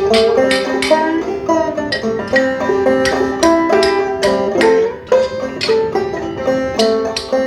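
Background music: a quick plucked-string tune, banjo-like, in a bluegrass style, its notes following one another in a steady run.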